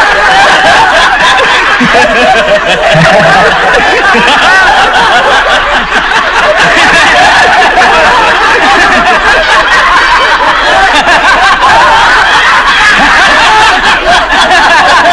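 A group of men laughing loudly together in one long, unbroken bout of overlapping laughter.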